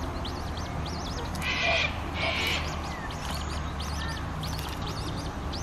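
Wild birds calling at the waterside: a stream of short, high, arching chirps throughout, with two harsh, rasping calls about one and a half and two seconds in. A low steady hum runs underneath.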